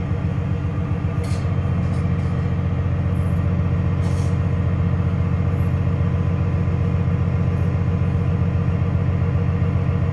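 Loud, steady low machinery drone holding one pitch, with a constant hum and no change in speed.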